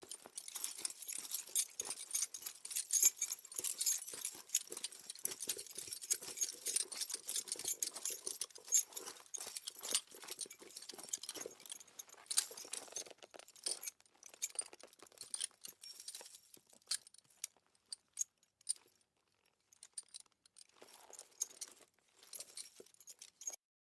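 Metal fittings of a horse's harness and reins jingling and clinking with the horse's walking movement. The jingling is dense for about the first half, then thins to scattered clinks, with a short pause near the end before a last spell of jingling.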